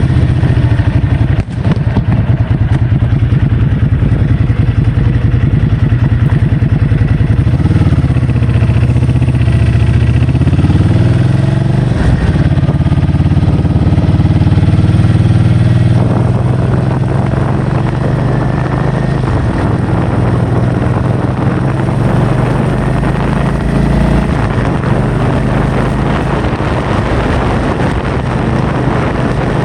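A vehicle engine running steadily under a rushing noise of wind on the microphone. Its pitch dips and rises again about eight to twelve seconds in, and it runs a little quieter from about halfway through.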